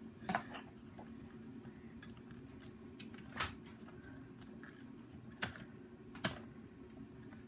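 Four sharp plastic clicks and taps at irregular intervals as the parts of a partly disassembled Nerf Hyper-Fire blaster are handled, over a faint steady hum.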